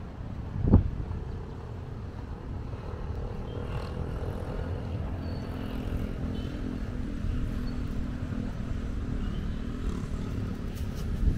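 Wind buffeting the microphone as a low rumble, with a sharp gust about a second in. Through the middle, a distant motor vehicle's engine hums faintly underneath.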